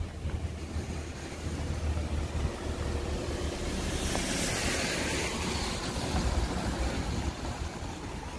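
Outdoor ambience in light rain: a steady low rumble of wind on the microphone, with a rushing hiss that swells and fades about four to five seconds in.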